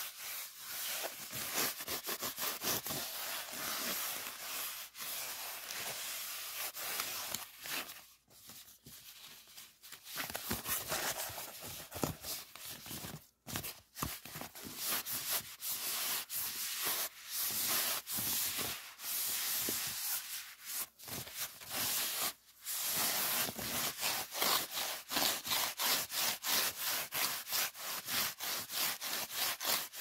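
Fingers rubbing and crumpling a thin white foam sheet: a dry, scratchy rustle made of rapid short strokes, easing off for a couple of seconds about eight seconds in.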